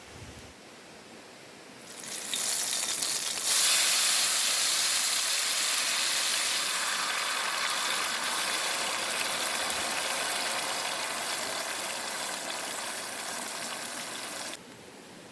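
Food sizzling in a hot pan of oil, starting about two seconds in, jumping louder a second later, easing off slowly, then cutting off suddenly near the end.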